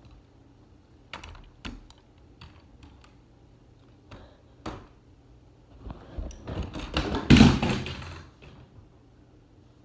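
A few separate light clicks and knocks, then about six seconds in a louder stretch of rubbing and bumps as the phone is grabbed and handled, loudest about a second later.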